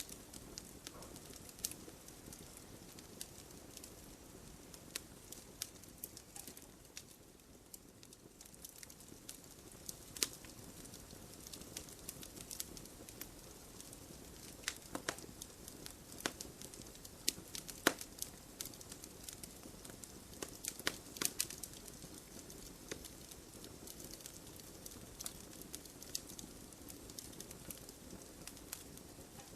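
Campfire crackling: irregular sharp pops and snaps over a low, steady hiss of burning. The pops thin out for a few seconds about a quarter of the way in, then pick up again.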